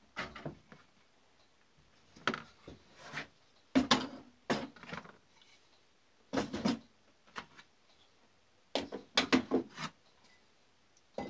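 Steel hand tools and a wooden block being picked up and set down on a wooden workbench: a string of short clunks and knocks in small clusters, with quiet gaps between them.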